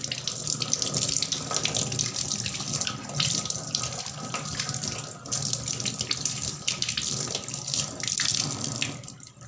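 Tap water running into a stainless-steel sink as hands are rinsed under the stream. The flow fades near the end.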